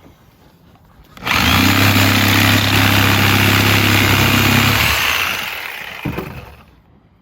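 Sawzall reciprocating saw running as it cuts through the rubber sidewall of an old tire on a split-rim wheel. It starts a bit over a second in, runs steadily for about four seconds, then winds down and fades out.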